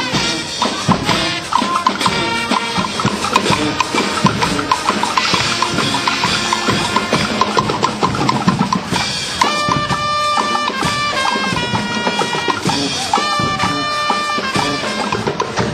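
Parade music with a drum beat and percussion, with held notes coming in about halfway through.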